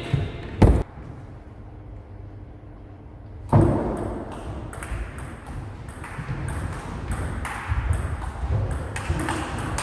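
Table tennis ball clicking off the bats and table in a rally, a sharp tick with each stroke and bounce, starting with a loud hit about three and a half seconds in. A single loud knock comes under a second in, before a quieter stretch.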